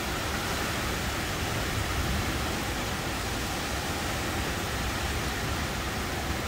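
Heavy storm rain pouring and wind gusting through the trees: a steady rushing noise.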